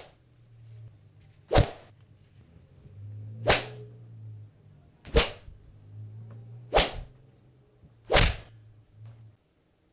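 A run of five fight-scene punch and kick sound effects, each a sharp swishing hit, about one and a half seconds apart. A faint low hum sits between the hits.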